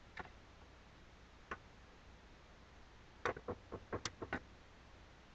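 Light plastic clicks and knocks from a LEGO plane model being handled: two single clicks, then a quick run of about eight clicks over roughly a second past the middle.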